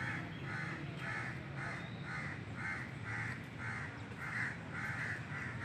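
An animal calling over and over in short, evenly spaced cries, about two a second.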